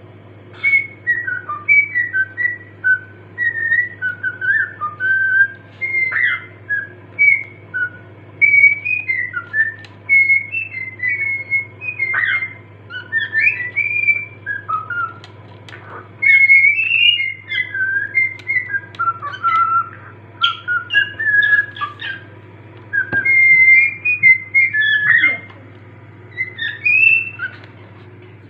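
Cockatiel singing: a string of short whistled notes and quick up-and-down glides in phrases, with short pauses between them, over a steady low hum.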